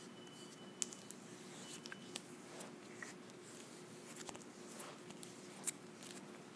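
Hands patting and rubbing skin on the face close to the microphone: soft faint rustling with a few sharp ticks, the loudest near the end.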